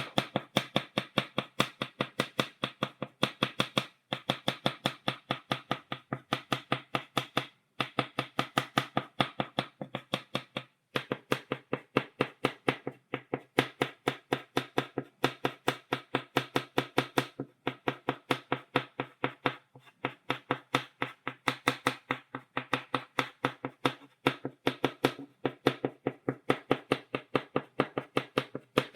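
Chalk tapped against a blackboard in quick stippling strokes, about five or six sharp taps a second, with a few short breaks between runs.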